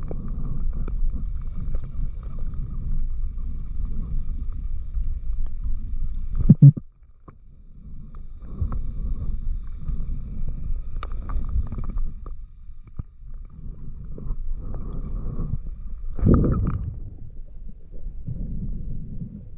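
Muffled low rumble of water moving around a camera carried by a swimming spearfisher underwater, with a faint thin hum above it. A short loud burst comes about six and a half seconds in, after which the rumble nearly drops out for a moment, and another louder burst comes near sixteen seconds.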